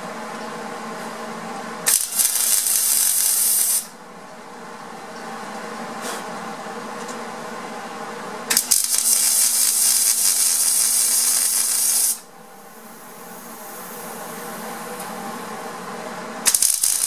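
Welding arc on the steel exhaust-hanger pieces: three bursts of loud, crackling hiss, about two seconds, three and a half seconds, and a shorter one near the end, laying plug welds. Between the bursts a steady electrical hum runs.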